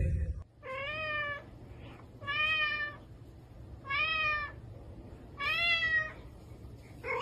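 Tuxedo cat meowing four times, about a second and a half apart, with a plush toy held in its mouth; each call rises and then falls in pitch.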